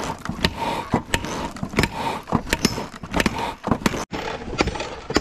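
Hand hammer striking hot steel on an anvil at a blacksmith's forge, with sharp, irregular blows about two or three a second over a steady rushing noise.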